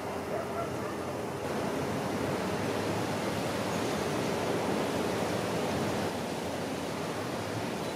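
Steady rushing outdoor noise, swelling a little about a second and a half in and easing again near the end.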